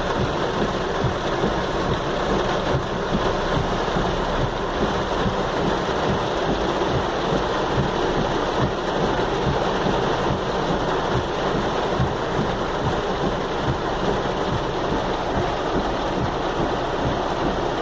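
Heavy downpour: rain falling steadily and hard, an even rushing noise without a break.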